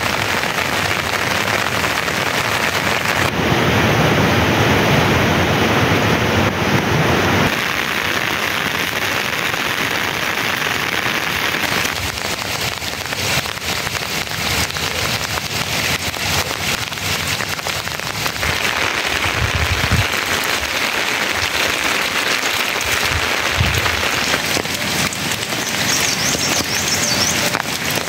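Steady rain falling, an even hiss that shifts in tone a few times.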